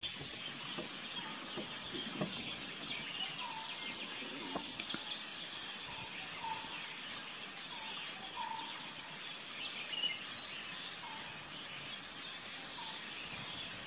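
Outdoor ambience with birds calling: a steady high-pitched hiss, scattered high chirps, and one short note repeated about once a second.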